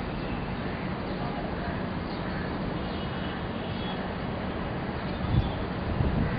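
Steady outdoor ambience of wind hiss and faint distant voices, with a few faint bird chirps. Low thumps of wind on the microphone come about five seconds in and again near the end.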